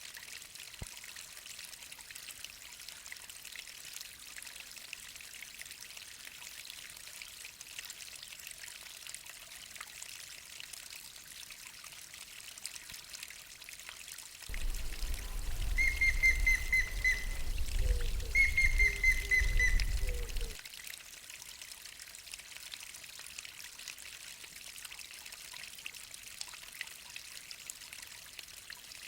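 Water of a small waterfall splashing and trickling steadily. Midway, wind rumbles on the microphone for about six seconds while a bird gives two short trilled calls.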